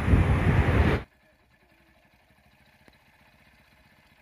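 Wind buffeting the microphone, loud and gusty, cut off abruptly about a second in, then near silence.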